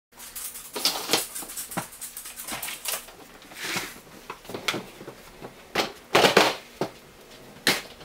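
Wheeled hard plastic tool case rolled across a tile floor: irregular clicks, knocks and rattles from the wheels and case, with a couple of brief scraping sounds.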